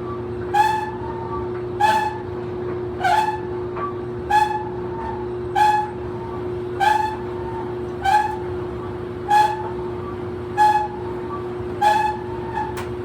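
Old clothes dryer running with a steady hum, its drum giving a short, high squeak at a regular rhythm of about one every second and a quarter.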